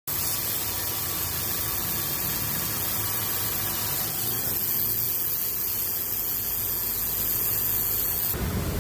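Subaru's air-conditioning compressor making an abnormal noise, a steady hissing whir over the engine running. Near the end the hiss stops abruptly and a lower hum takes over.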